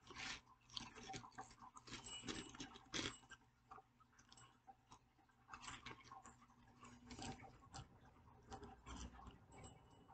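A person chewing crunchy breaded popcorn shrimp close to the microphone: faint, irregular crunches and mouth sounds, busiest in the first few seconds.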